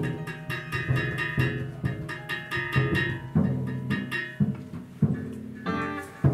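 Live improvised music on plucked strings: low plucked bass notes with higher picked notes over them, in many short, sharp attacks.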